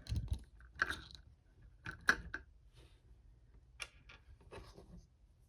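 Small hard-plastic clicks and knocks from a posable action figure being handled, its swappable hands and ratcheting joints snapping into place. The clicks come one at a time, about half a dozen in all, louder in the first half.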